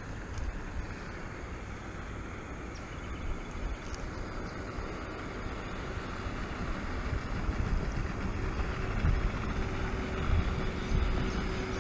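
Wind buffeting the microphone over rippled open water, an uneven low rumble, with a faint steady hum joining about eight seconds in.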